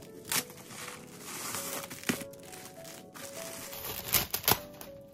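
Bubble wrap crinkling and rustling as it is pulled off a parcel, with a few sharper crackles, the loudest two close together near the end. A simple background-music melody plays throughout.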